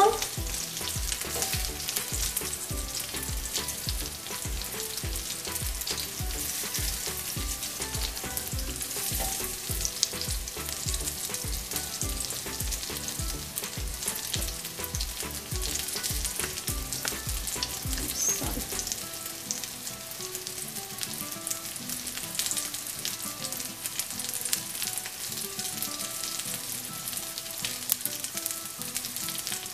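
Breadcrumbed potato cutlets shallow-frying in hot oil in a nonstick skillet: a steady sizzle with fine crackling.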